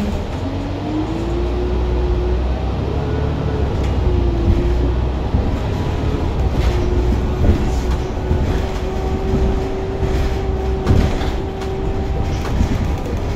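Interior running noise of a New Flyer Xcelsior XN40 natural-gas city bus under way. There is a steady low engine rumble, and a drivetrain whine that rises in pitch over the first couple of seconds, then holds steady. A few knocks and rattles come from the cabin.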